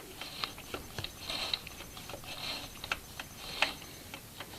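Light clicks and soft rubbing from handling a sewing machine and its threads, scattered irregularly and faint.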